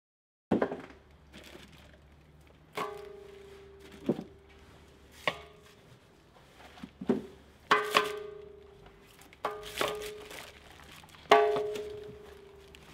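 Metal pipe fittings clanking as they are picked up and knocked together. There are about nine sharp knocks, each ringing briefly with a clear metallic tone, and the loudest comes near the end. Plastic bags crinkle between knocks.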